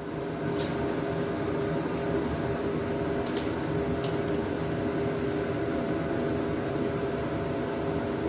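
Steady appliance-like hum with a tone in it, such as a kitchen fan or stove, with a few light metallic clicks as a plate-lifter gripper takes hold of a hot plate in a wok steamer.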